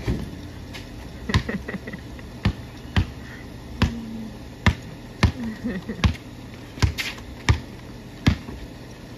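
Basketball dribbled on a concrete driveway: about a dozen sharp bounces at an uneven pace, roughly one every half-second to second.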